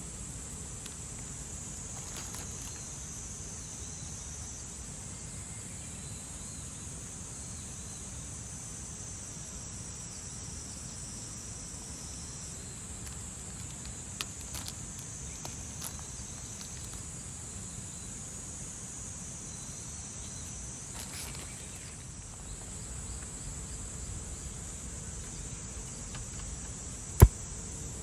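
Insects calling in a steady, high, continuous buzz over a low ambient rumble, with one sharp click near the end.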